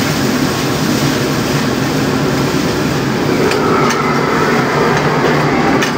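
Steady, loud noise of food cooking on a large commercial flat-top grill. A few light metal clicks and knocks of utensils come in over the second half.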